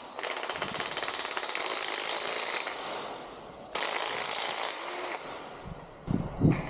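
Hand-held power tool running with a fast hammering rattle in two bursts, the first about two and a half seconds long and the second about a second and a half, as the loop kit is fastened to the cage. A couple of low knocks come near the end.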